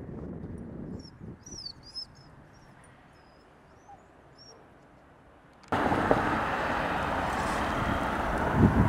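Outdoor ambience: a few short bird chirps over a faint low rumble in the first three seconds, then a quiet stretch. About six seconds in, a loud steady noise cuts in abruptly and carries on.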